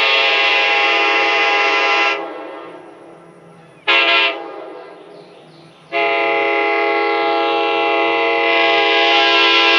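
Nathan K5LA Big Bore five-chime train horn sounding its chord: a long blast that cuts off about two seconds in, a short toot about four seconds in, then another long blast from about six seconds on. Each cut-off leaves a fading echo.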